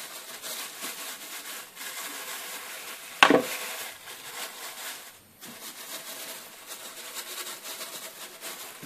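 Thin plastic bags crinkling and rustling as hands press and smooth a slab of sticky nougat flat between them, with one sharp knock about three seconds in.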